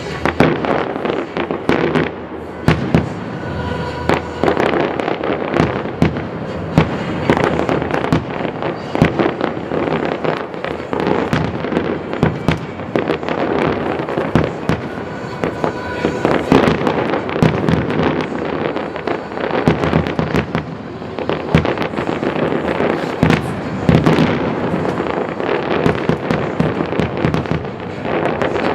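Fireworks finale: a dense, unbroken barrage of bangs and crackling shells going off in quick succession.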